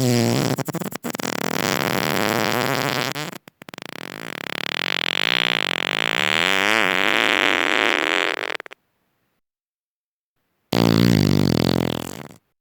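Human farts, three in a row with silence between them. The first lasts about three seconds, the second is longer at about five seconds with a pitch that wavers up and down, and a shorter one comes near the end.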